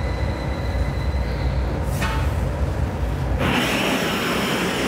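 Steady low rumble of glassblowing-studio machinery, with a sharp knock about two seconds in and a loud hiss that starts about three and a half seconds in and lasts about two seconds.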